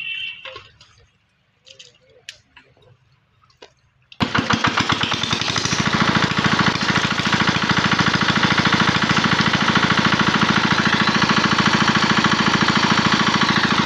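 Small engine-driven water pump running steadily with a fast, even pulsing beat, starting abruptly about four seconds in. Before it, a brief splash of water poured from a pot.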